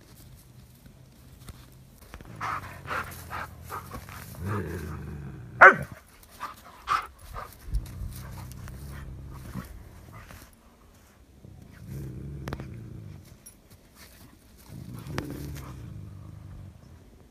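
A dog and a bobcat in a standoff growling: low, drawn-out growls in four stretches of a second or two, with a run of sharp sudden sounds about two to seven seconds in, the loudest one near six seconds.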